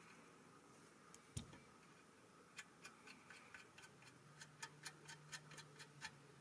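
Faint light clicks from small metal parts being handled at the nose of a stamped steel toy plane, where its propeller mounts. One sharper click comes about a second in, then a run of quicker clicks, about three or four a second, through the second half.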